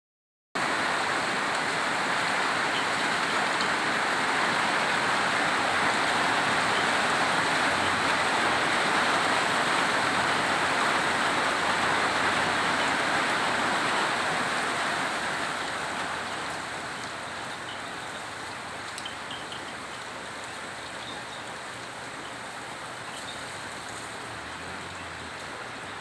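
Heavy rain falling, a steady hiss that eases off and grows quieter about fifteen seconds in.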